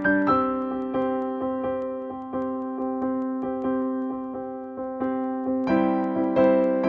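Background keyboard music with an electric-piano sound: single notes over held chords, getting fuller near the end.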